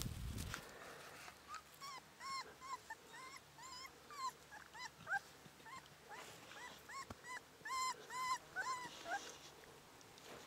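Cane Corso puppy whimpering in a run of short, high whines, two or three a second, with a short break about halfway through. A brief rustle of handling at the very start.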